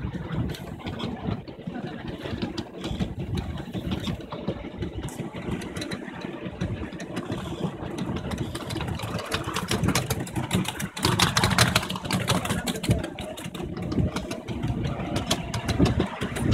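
Miniature railway train under way, heard from the carriages: the locomotive's engine runs steadily while the wheels clatter rapidly over the track, louder about two-thirds of the way through.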